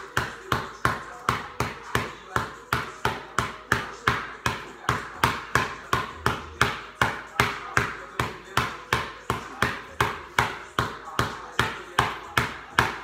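A basketball dribbled steadily on a concrete garage floor, about three even bounces a second, each bounce ringing briefly in the room.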